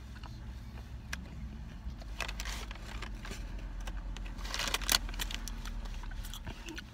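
An iced biscuit being handled and bitten: a few short crunching, rustling noises, the loudest about two and a half and five seconds in, over the steady low hum of a car cabin.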